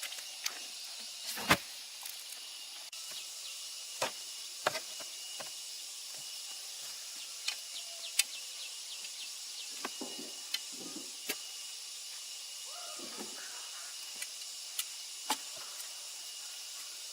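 Steady high outdoor background of insects, with scattered sharp knocks and clicks throughout, the loudest about a second and a half in.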